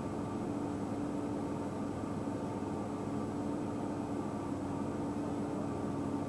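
A steady mechanical hum with several held tones over a rushing noise, unchanging throughout.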